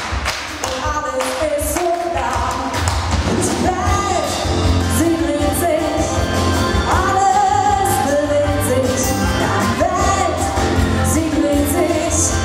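A live rock band playing a song: drums, bass and acoustic guitar, with a held melody line sliding between notes on top. The first couple of seconds are sparser hits before the full band settles in.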